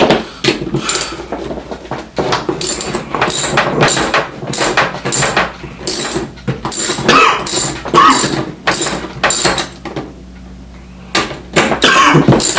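Wrench and tools clinking and rattling against a roller skate's wheel nuts and axle as the wheels are taken off: a busy run of sharp metallic clicks and knocks, pausing briefly near the end.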